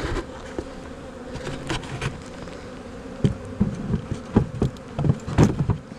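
Honeybees buzzing steadily around an open hive, with a run of sharp knocks and scrapes in the second half as a hive part is worked back into place.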